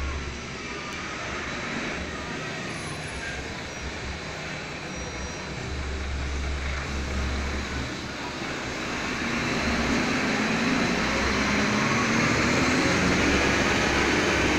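Steady motor-vehicle rumble and hiss, swelling louder about nine seconds in.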